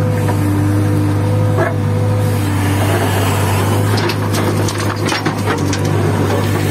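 JCB 3DX backhoe loader's diesel engine running steadily under load in the cab while the backhoe digs, with a steady whine over the engine hum and scattered knocks as the bucket works stony soil.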